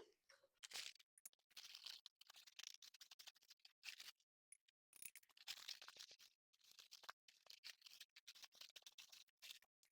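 Faint, irregular scraping and gritty rustling of powdered washing soda being measured out with a cup.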